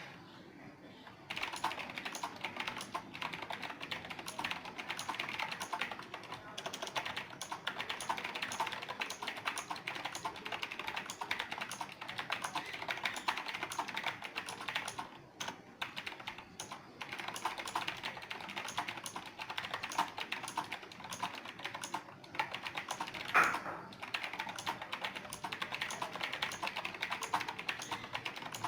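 Continuous typing on an Azio MK-Retro mechanical keyboard: a dense run of key clicks starting about a second in, with a few short pauses and one louder keystroke near the end.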